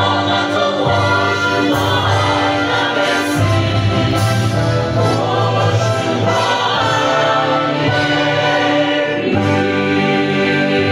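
A small mixed choir of men and women singing a gospel song together, accompanied by an electronic keyboard whose bass notes change every two to three seconds.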